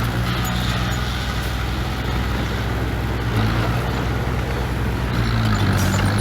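Diesel engine of heavy earthmoving machinery running steadily, its note growing a little stronger about three and a half seconds in.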